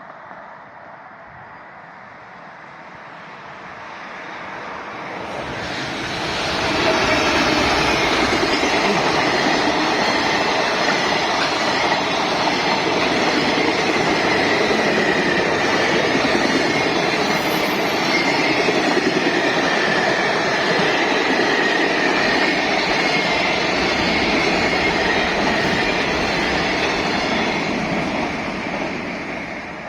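Freight train passing close by: it builds up over about five seconds, runs loud and steady for around twenty seconds as the wagons go past, with a high whine, then fades near the end.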